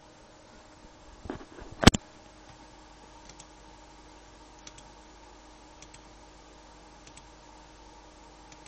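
Computer fan running with a steady hum. About a second and a half in come a few soft knocks, then one loud sharp click, followed by faint ticks roughly every second and a quarter.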